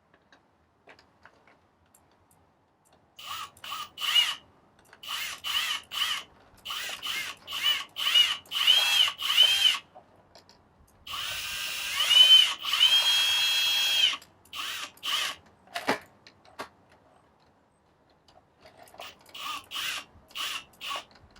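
Cordless drill, its clutch set low, driving screws through a doorbell mounting plate into wood: a series of short trigger pulls, the motor's whine rising and falling with each. There is one longer run of about three seconds in the middle, then a quiet spell of a few seconds before a last group of short pulls near the end.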